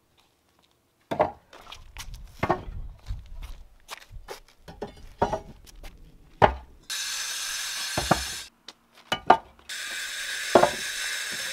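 Hollow concrete blocks being set down onto a dry-stacked block wall: about seven sharp knocks and scrapes of concrete on concrete, several seconds apart. A steady hiss comes in about seven seconds in and again near the end.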